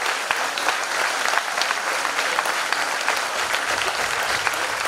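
Audience applauding steadily, many hands clapping at a constant level.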